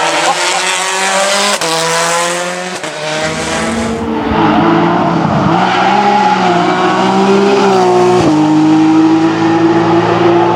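Rally car engine accelerating hard, its pitch climbing and falling back at gear changes about one and a half and three seconds in. It then runs at high revs with a steady note that dips briefly about eight seconds in.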